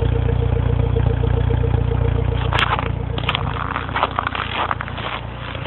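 2007 Mini Cooper S four-cylinder engine idling steadily while it warms up after a cold start. About two and a half seconds in, the engine sound drops away, and sharp clicks and irregular clattering follow.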